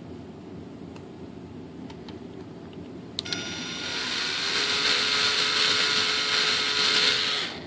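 A small motorised hand tool switched on with a click about three seconds in, spinning up and running steadily with a hissing whine, then switched off shortly before the end.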